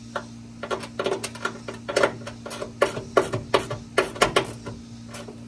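Small hand wrench clicking in quick, uneven strokes as it snugs up the nuts holding a hood catch bracket, thickest from about a second in until it stops near four and a half seconds.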